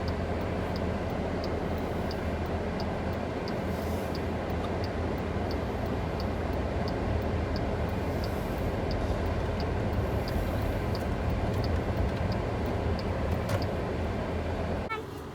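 A vehicle driving, heard as a steady engine and road rumble with a strong low hum and a faint, even ticking about one and a half times a second; the rumble cuts off just before the end.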